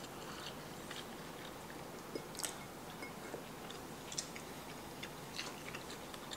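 Quiet chewing of a soft dumpling, with a few small clicks scattered through it.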